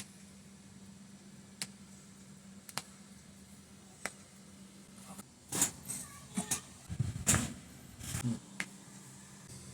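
A few isolated sharp clicks, then from about five and a half seconds in a close run of cracks and soft thuds. These are joints popping and the body being worked during a chiropractic adjustment.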